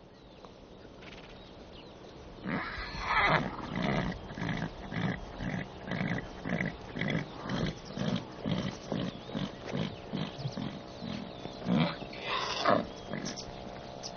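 A horse calling: a loud whinny with falling pitch a couple of seconds in and another near the end, with a regular pulsing sound about twice a second between them.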